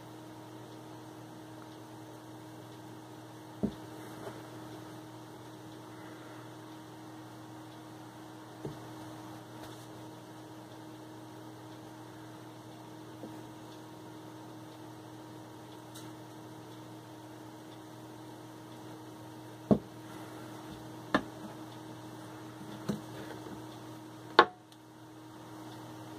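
Sharp knocks of soap bars and hands against a wooden wire soap cutter, six or so scattered through, the loudest near the end, over a steady low electrical hum.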